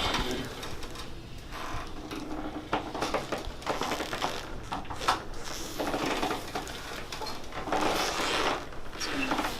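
Rustling and a few short clicks and creaks from a chiropractic treatment table and clothing as a patient shifts position on it, with one sharper click about five seconds in.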